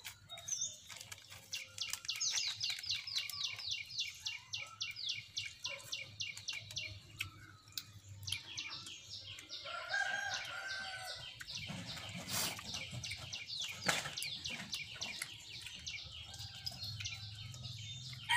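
Farmyard birds: quick runs of short high chirps, about six a second, with chickens clucking.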